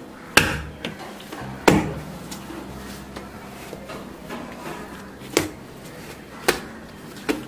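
Soft bread dough kneaded by hand on a granite countertop: five irregular dull knocks as the dough and hands press down on the stone.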